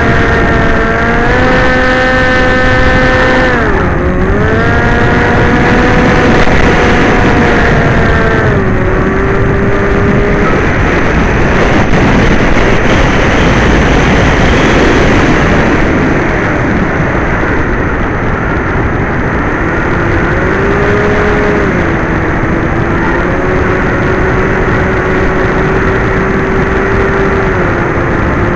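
Electric motors and propellers of an FPV drone whining in flight, the pitch stepping down twice as the throttle is eased, then mostly buried under wind rush for several seconds before a steadier whine returns.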